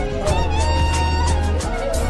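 Music: a melody with sliding notes over a steady deep bass.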